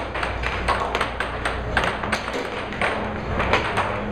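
Air hockey puck clacking sharply against the players' mallets and the table rails in a fast rally, many irregular clicks a second, over the steady low hum of the table's air blower.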